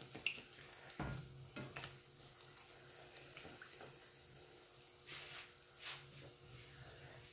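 Spinach puri frying in hot oil in a pan: a faint sizzle with scattered small pops, and two short louder hisses about five and six seconds in.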